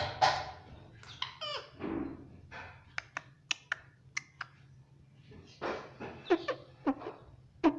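Pet Indian ringneck parrot chattering: sharp clicks and short gliding chirps, with a few soft mumbled sounds between them.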